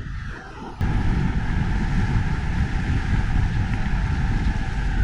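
Steady low rumble of a motorhome driving along, road and engine noise. It starts abruptly about a second in, after a brief quieter stretch.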